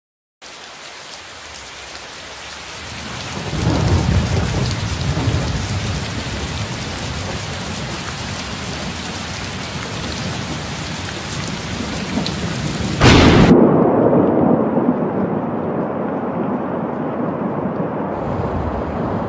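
Thunderstorm ambience: steady heavy rain with rolling thunder. A rumble swells about four seconds in and a louder thunder crack comes about two-thirds of the way through, after which the rain sounds muffled.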